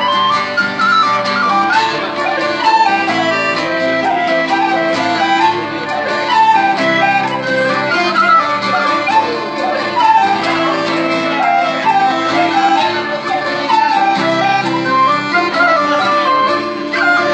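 Celtic folk tune played on a whistle, an ornamented melody over a strummed steel-string acoustic guitar.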